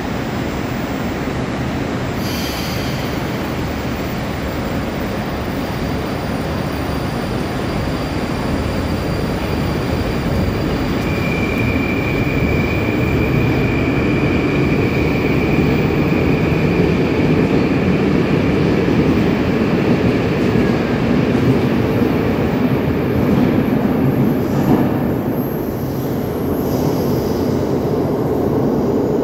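Moscow Metro 81-775/776/777 train pulling out of the station and running past into the tunnel. A short hiss about two seconds in, then the train gets louder as it gathers speed, with a high steady whine for about ten seconds in the middle.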